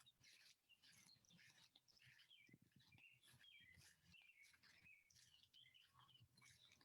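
Near silence outdoors, with faint birds chirping.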